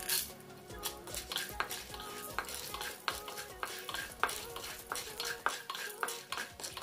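Wooden spatula stirring unpopped popcorn kernels in hot oil in a wok, the hard kernels clicking and scraping against the pan over a light sizzle. Just after the start, a handful of kernels is dropped into the pan with a brief loud rattle.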